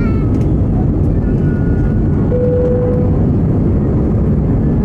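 Airbus A320 jet engines running loud and steady, heard from inside the passenger cabin as a deep, constant roar. A short steady tone sounds briefly about halfway through.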